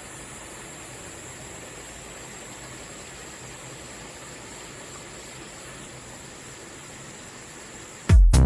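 Steady rush of a mountain valley stream, with a thin, high steady tone over it. Loud electronic dance music with a beat cuts in near the end.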